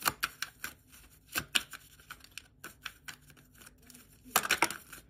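A deck of tarot cards being shuffled by hand: a run of quick card flicks and snaps, with a denser flurry of shuffling about four and a half seconds in.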